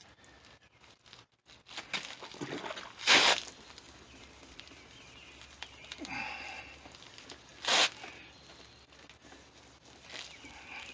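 A plastic headlight lens being wet-sanded by hand with 600-grit sandpaper: a few separate rasping strokes, two of them louder, about three and eight seconds in.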